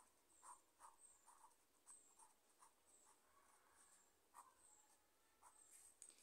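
Faint scratching of a pen drawing on paper, in short, irregular strokes.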